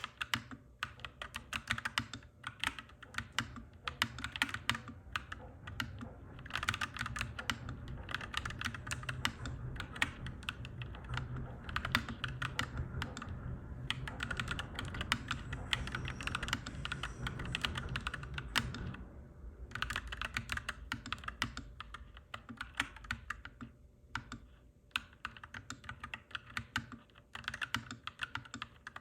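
Typing on a clacky mechanical keyboard in quick runs of keystrokes with brief pauses. Under the typing, a low rumble like a passing train swells for the middle stretch and fades away about two-thirds of the way through.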